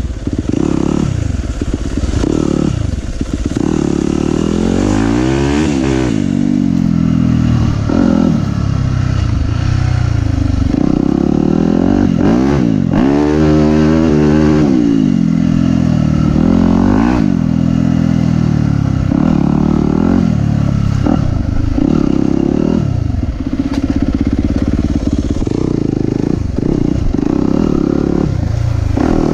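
Yamaha YZ250F four-stroke single-cylinder dirt bike engine being ridden hard, its pitch rising and falling over and over with each throttle change and gear shift, with a quick run of sharp revs about halfway through.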